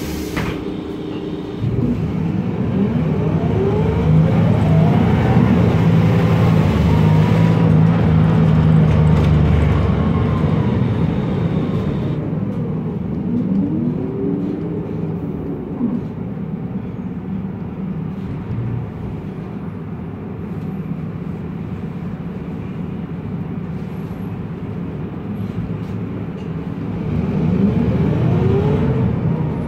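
Onboard sound of a MAN Lion's Classic city bus running on its MAN E2876 CNG engine through a ZF Ecomat 6HP504C automatic gearbox. It pulls away with a loud run and a transmission whine that rises in pitch and then falls away. It settles into a quieter, steady run and picks up again with another rising whine near the end.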